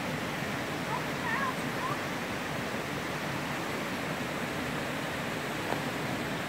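Steady rush of a stream's flowing and falling water. A few faint short chirps sound about a second in.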